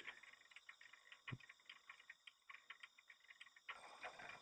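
Near silence with faint, irregular ticking and clicking, one click a little louder about a second in.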